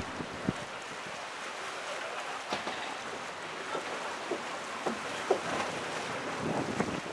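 Steady wind and water noise on open water, with scattered short knocks or splashes.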